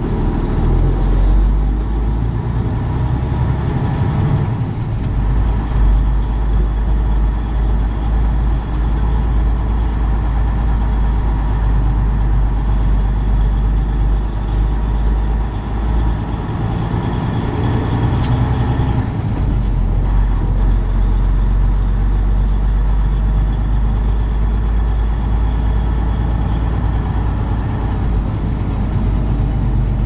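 Semi truck's diesel engine and cab noise while pulling away and driving slowly: a steady, loud low rumble.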